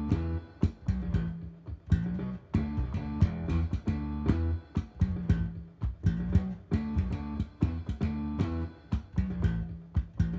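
Five-string electric bass played with slap technique: a rock riff with sharp, snappy note attacks, the phrase repeating about every two seconds.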